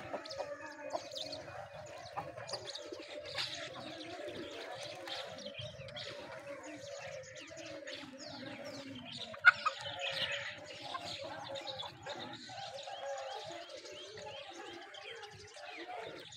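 Farmyard birds calling: low continuous cooing and clucking with many quick high chirps over it. A single sharp knock about nine and a half seconds in is the loudest moment.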